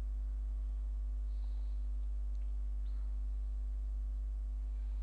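Steady low electrical hum, a mains-type hum in the recording, with no other clear sound.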